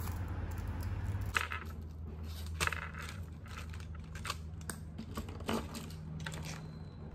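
Pens and stationery clicking and rattling as they are handled and taken out of a mesh zip pencil case onto a desk: a string of light, irregular clicks and rustles starting about a second in, over a low steady hum.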